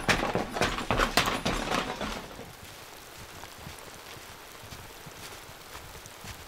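Quick, loud jogging footsteps, about three a second, that stop suddenly about two seconds in. After that, a faint outdoor background with a few soft footfalls of snowshoes in snow.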